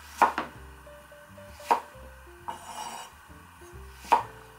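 Chef's knife slicing a Thai eggplant on a wooden cutting board: three sharp knocks as the blade goes through and strikes the board, with a short soft scrape between the second and third, over background music.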